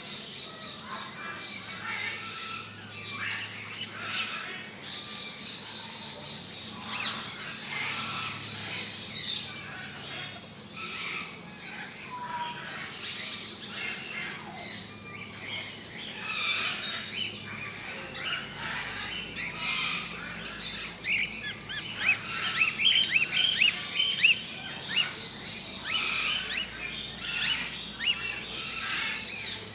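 Birds chirping, many short high calls overlapping, busier in the second half.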